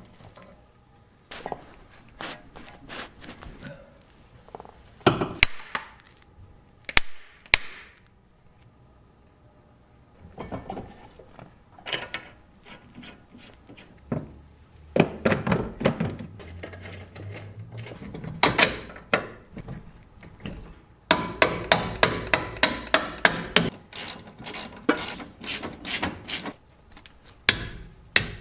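Hand tools and metal parts at work during reassembly of a car's front suspension: scattered metallic clinks and knocks, two sharp ringing clanks about five and seven seconds in, and a fast run of evenly spaced clicks in the last third.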